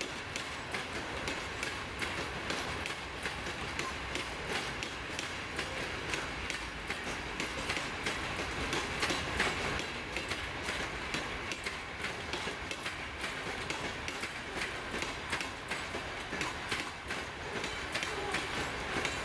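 Freight train hopper wagons rolling steadily past, their wheels clattering over the rail joints: a continuous rolling noise with frequent sharp clicks.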